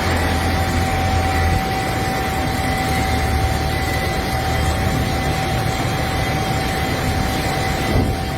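A heavy machine's engine running under the steady hiss of heavy rain, with a steady high whine over it. The low engine drone drops away about a second and a half in.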